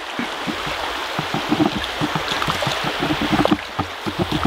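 Walking with a camera mounted on a backpack shoulder strap: quick, irregular knocks and rustles of strap, gear and footsteps several times a second, over a steady rushing hiss.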